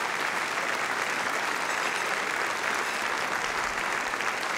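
Banquet audience applauding steadily.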